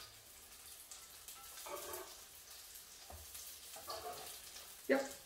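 Courgette, pea and feta fritters sizzling faintly in oil in a frying pan while a spatula works under them, with a short, sharp knock of the spatula against the pan a little before the end.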